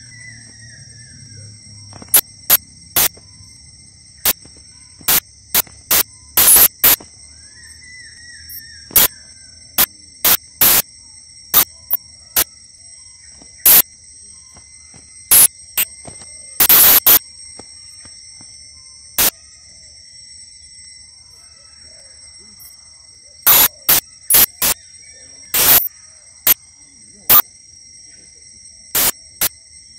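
A steady, high-pitched insect drone, cut through by many loud, sharp clicks at irregular intervals. Two faint falling bird chirps come near the start and about eight seconds in.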